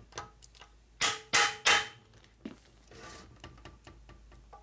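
A steel hammer striking a hand impact driver three times in quick succession, about a third of a second apart, about a second in, driving a cover screw tight on an engine case. Lighter clinks of the tool being handled come before and after.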